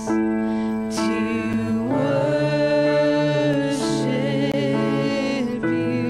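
A small group of voices singing a slow worship song in harmony, accompanied by an electronic keyboard. The notes are long and held with vibrato, and the chord changes every second or two.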